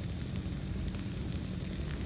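Brush pile of branches burning: scattered sharp crackles and pops over a steady low rumble of the fire.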